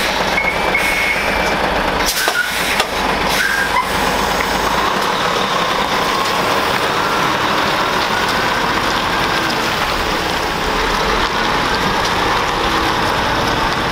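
Heavy diesel tractor unit pulling a flatbed semi-trailer slowly past: steady engine and tyre noise, with a few knocks and rattles about two to four seconds in.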